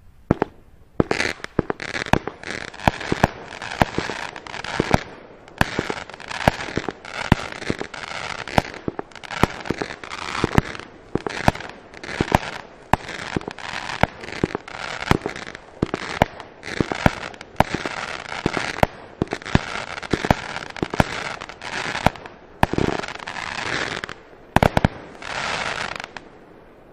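A 30-shot consumer firework battery (cake) firing its shots in quick succession, a sharp bang about once a second with crackling and hissing between them as the shells burst.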